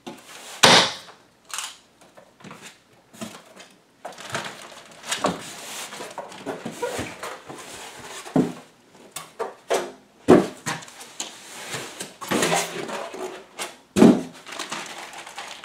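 Unpacking noise: plastic wrap rustling and crinkling and styrofoam packing blocks scraping as they are pulled off a boxed AV receiver, with several sharp knocks along the way.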